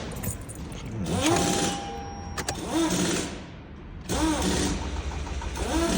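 2018 Toyota Camry's starter cranking the engine, which turns over but doesn't fire: a crank-no-start even with fuel added to the intake.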